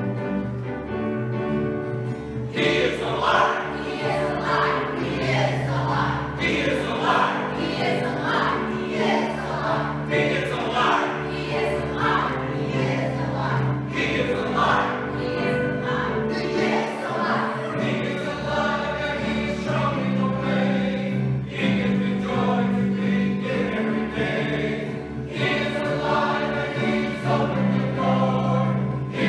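A church choir of men and women singing with instrumental accompaniment. The voices come in about two and a half seconds in, after a short instrumental lead-in.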